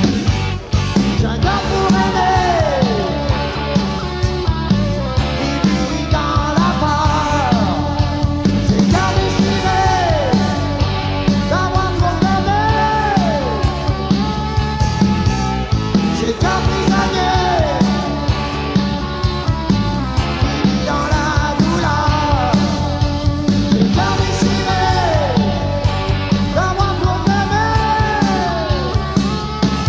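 Rock band playing: a male lead singer over electric guitar, bass guitar and drum kit, with a steady drum beat and recurring downward slides in pitch about every two seconds.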